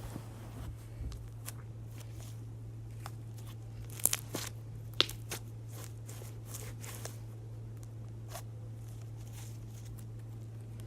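Slime being squished and stretched by hand, giving irregular small clicks and crackles, the sharpest few about four and five seconds in, over a steady low hum.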